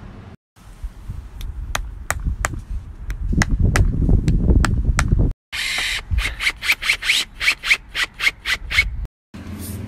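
Cordless drill-driver working on a concrete wall while an outdoor light fitting goes up: sharp clicks over a low grinding that grows loud in the middle, then short whirring bursts, about three a second, each rising in pitch, as screws are driven through the fitting's round base. The sound cuts off abruptly three times.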